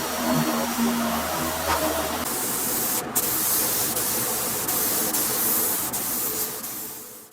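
A power tool running with a low hum, then about two seconds in a loud, steady hiss of compressed air from bodywork equipment, broken off briefly once; it fades out at the end.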